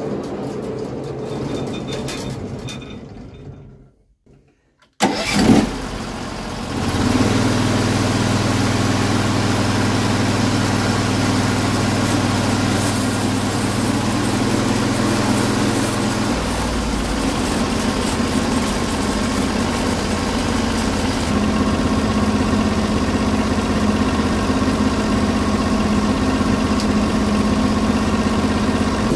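Engine of a Norwood HD36 portable sawmill starting about five seconds in after a brief hush, then running steadily. Its low note shifts partway through. Before the start, a sound fades away over the first few seconds.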